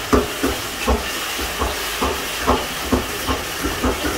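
Chicken and tomato gravy sizzling steadily in a non-stick pan on a high gas flame, as its excess water cooks off. A spatula knocks and scrapes against the pan about twice a second as it is stirred.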